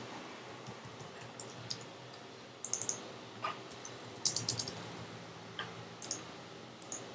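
Computer keyboard keystrokes in a few short bursts with pauses between them, as a phone number and a short text message are typed.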